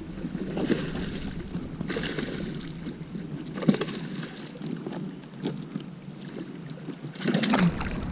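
A hooked bass splashing and thrashing at the surface of shallow water as it is reeled to the bank, in several separate splashes, the loudest near the end as it reaches the rocky edge.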